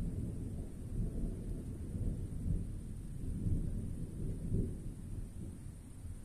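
Rolling thunder from a nearby thunderstorm: a long, low rumble that swells several times and eases off near the end.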